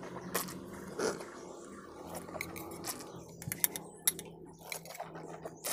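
Faint eating sounds: a spoon clicking and scraping against a steel bowl, with scattered short sharp clicks that come more often in the second half, over a low steady hum.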